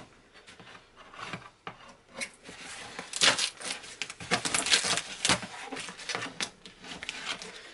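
A butcher knife cutting through packing tape on a cardboard carton: a run of scraping strokes, faint at first and loudest and quickest about three to five seconds in.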